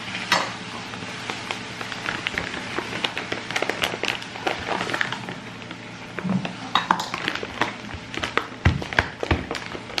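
Crinkling of a plastic flour pouch and a plastic scoop clicking and scraping against a bowl as chickpea flour is scooped out, with a couple of louder knocks near the end.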